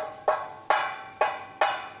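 Metal being struck with a hammer: five sharp blows about three a second, each ringing briefly.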